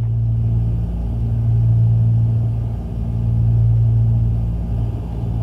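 Cockpit drone of a Cessna 310's two piston engines and propellers at cruise: a steady low hum that swells and fades slowly every couple of seconds, the beat heard when the two engines are not quite in sync.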